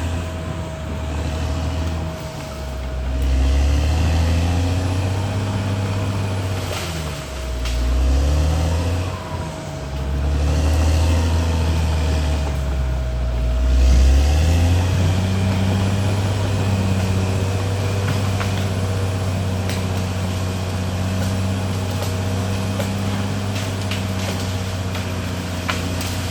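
Caterpillar D6R XL bulldozer's diesel engine working, its pitch rising and falling with throttle and load for the first half, then holding steady from about halfway in. A steady whine runs underneath, with scattered clanks.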